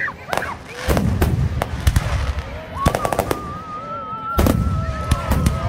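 Fireworks display: aerial shells bursting with sharp bangs and deep booms, several in quick clusters, with crackling between them. From about halfway through, a high steady tone runs on under the bangs.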